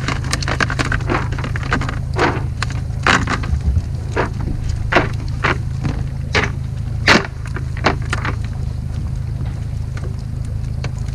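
Herring and a cast net being shaken out into a plastic bucket: irregular sharp knocks and slaps, about one or two a second, stopping about eight seconds in. A steady low hum runs underneath.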